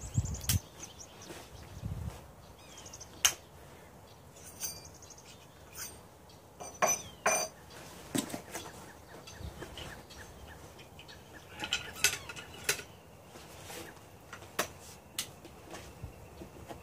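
Scattered sharp metallic clicks and clinks of a .700 Nitro Express double rifle being handled: its action broken open and reloaded with cartridges, then closed. No shot is fired.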